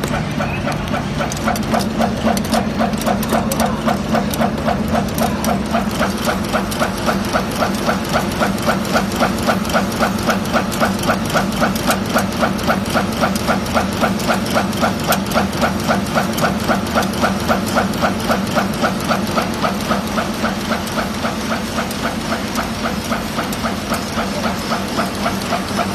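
Screw thread rolling machine running, rolling M5×50 screws with an even rhythmic beat of about three strokes a second over a steady motor hum.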